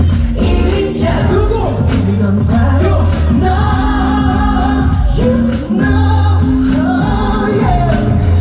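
Live pop music at a concert: a male vocal group singing over loud band accompaniment with a heavy, steady bass.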